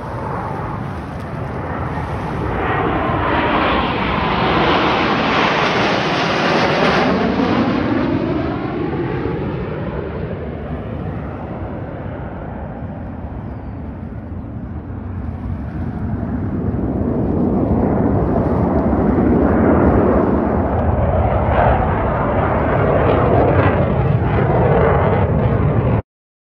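Jet engines of a four-jet military demonstration formation flying overhead. The noise swells into a roar with a sweeping, falling pitch as the jets pass, fades, builds again, and cuts off abruptly near the end.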